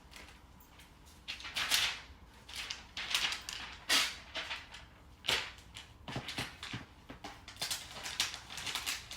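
Packaging being handled: a string of short rustles and scrapes of paper and cardboard, with a few soft knocks about six to seven seconds in, as a new MacBook Air is taken out of its box and wrapping.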